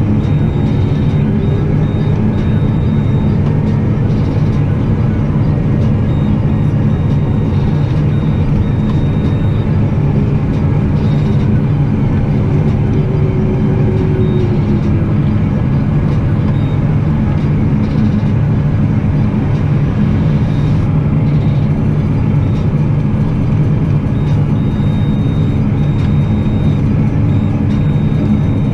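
Claas Axion 850 tractor's six-cylinder diesel engine running steadily under drilling load, a constant low drone heard from inside the cab. A faint whine rises and falls briefly twice.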